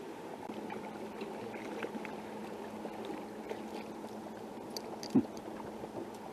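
Steady low hum of a fishing boat on the water, with faint small ticks and gurgles, and one short, sharp sound with a falling pitch about five seconds in.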